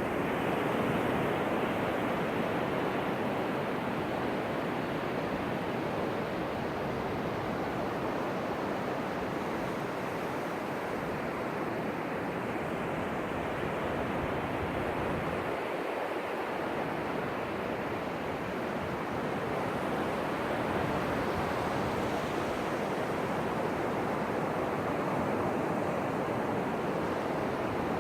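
Ocean surf washing ashore in a steady rush, swelling and easing slowly with the waves.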